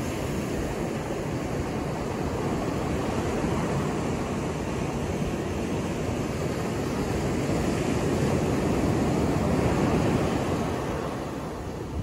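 Ocean surf washing onto a sandy beach: a steady rushing wash that swells to a peak about eight to ten seconds in, then eases off near the end.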